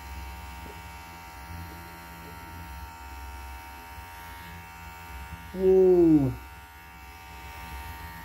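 Oraimo Smart Clipper 2 cordless hair clipper running with a steady buzz as its blades cut arm hair on a forearm, the blades not yet lubricated. About two-thirds of the way in comes a short, loud, falling vocal sound.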